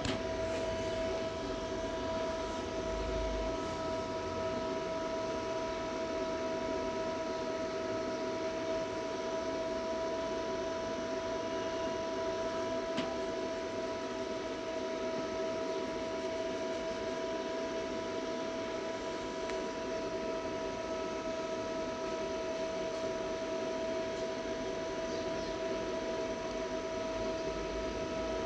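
Steady electrical hum with a constant high whine, unchanging throughout.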